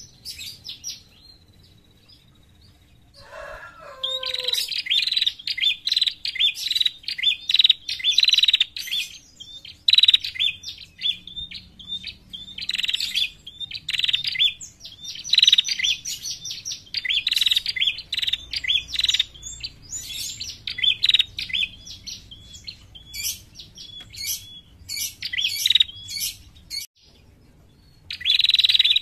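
Caged female red-headed prenjak giving its call, rapid bouts of sharp, high chirps. It starts a few seconds in, after a brief lower falling note, and pauses briefly near the end before starting again.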